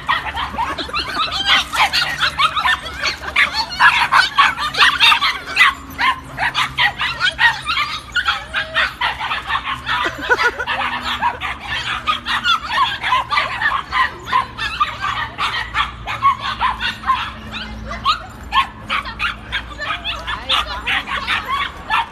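Several puppies yapping and yipping over one another in a dense, unbroken stream of short high-pitched barks, with some whimpering.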